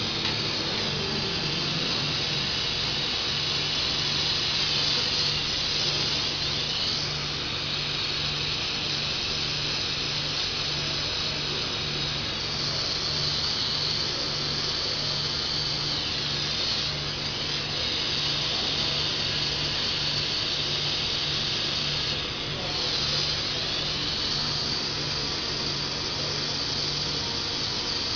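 Steady machinery noise: a low, evenly pulsing hum under a loud high hiss that shifts in pitch now and then.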